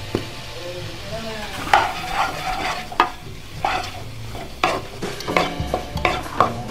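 Wooden spatula stirring and tossing chicken strips and vegetables in a nonstick wok, with irregular scrapes and knocks against the pan every half second to a second, over a light frying sizzle.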